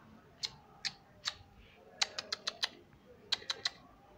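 Sharp mouth clicks, a person clicking the tongue to call puppies: three single clicks, then a quick run of five and, near the end, a run of three.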